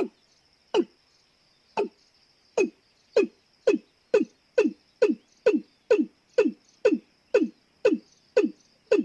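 Watercock calling: a long series of short, downward-sliding notes that speeds up from about one a second to about two a second.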